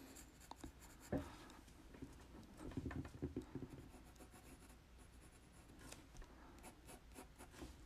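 Pencil scratching on paper in faint, short strokes as lines are drawn: one stroke about a second in, a run of strokes a little later, and a few more near the end.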